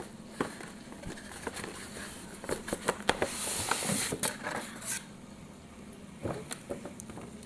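Cardboard toy box and its packaging being opened and handled: scattered clicks and taps, with a sliding, rustling hiss of packaging from about three to five seconds in.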